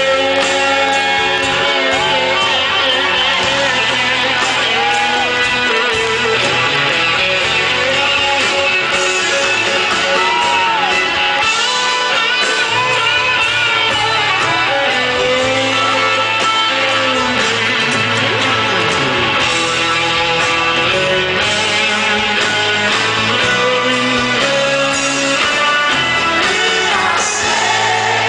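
Live rock band playing in a large hall, with an electric guitar lead of bending notes over the band. Singers come in near the end.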